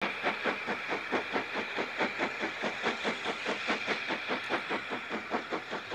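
Steam locomotive working hard: rapid, even exhaust beats, about five a second, over a steady hiss.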